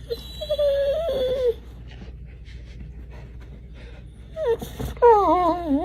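A dog whining in long, wavering whines: one about a second long near the start, then after a pause a short rising whine and a longer one that wavers and falls in pitch.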